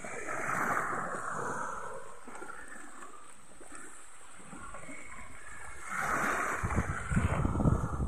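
Small sea waves washing up onto a sandy beach and drawing back. The wash swells twice, once at the start and more loudly near the end, with a quieter lull between.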